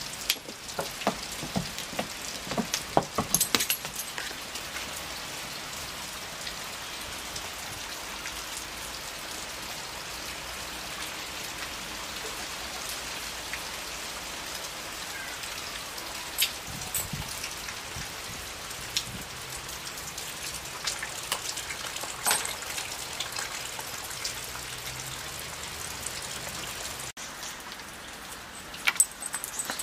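Steady rain falling, an even hiss of drops, with a few sharper taps and clicks standing out, a cluster of them about three seconds in and single ones later.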